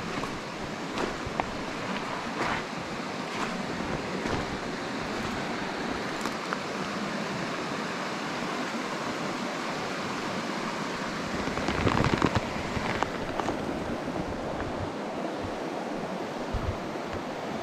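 Shallow river running over stones, with footsteps crunching on gravel about once a second in the first few seconds. A louder rush of noise comes about twelve seconds in.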